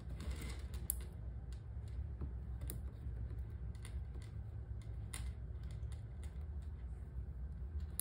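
Scattered light metallic clicks and clinks of a chain strap and its snap-hook clasps being handled and clipped onto a bag, over a low steady hum.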